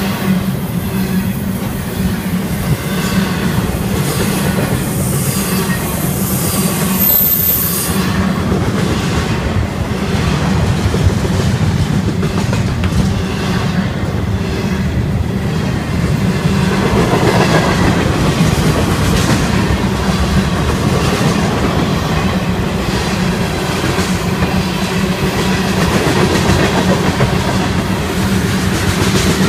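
Cars of a long Florida East Coast Railway freight train rolling past close by, first double-stack container well cars and then tank cars. Steel wheels on the rails make a steady, loud rumble and clatter.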